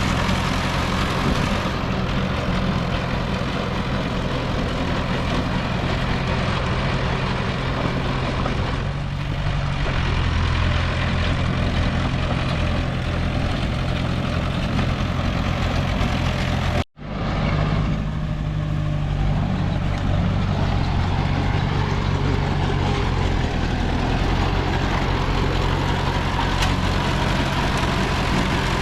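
Diesel engine of heavy earthmoving machinery running steadily. The sound cuts out for an instant just past halfway and fades back in.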